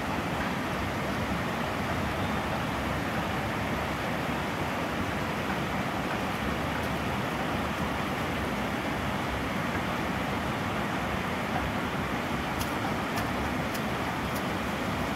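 Steady rush of water spilling over a low concrete weir, an even, unbroken noise.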